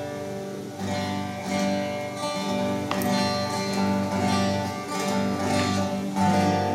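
Steel-string acoustic guitar strummed in chords about once a second, each chord ringing on into the next, as a warm-up during a soundcheck.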